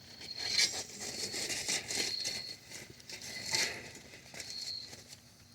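Irregular rustling, crinkling and scraping as foil-wrapped apple packets are dug out of campfire coals and lifted out.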